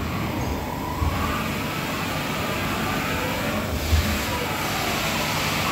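Hartford 2060 vertical machining centre running its axes: the servo-driven table traversing with a steady mechanical whir that swells and fades, and a short thump about four seconds in.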